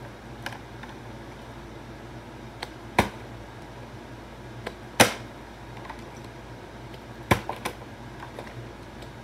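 Plastic water bottle knocking and clattering on a hard floor during bottle flip attempts: several separate sharp knocks, the loudest about five seconds in.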